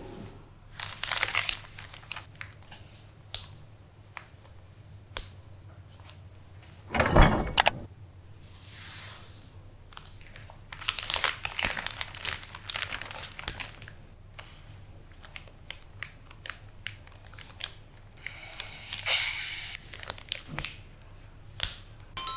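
Paper towel and a clear plastic zip-top bag being handled: crinkling and rustling in bursts, with one thump about seven seconds in.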